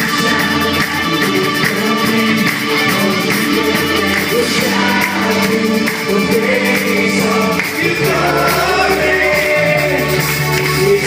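A live band plays an upbeat Christian worship song with a lead singer on microphone. It is loud and steady, with a driving drum beat.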